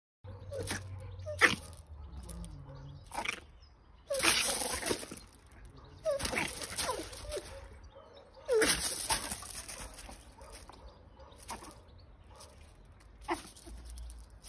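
Dog vocalising in several short, noisy bouts a second or two long, with quieter stretches between.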